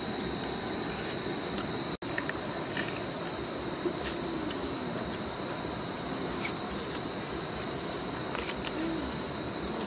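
Steady, high-pitched chorus of night insects such as crickets, with a few scattered short clicks.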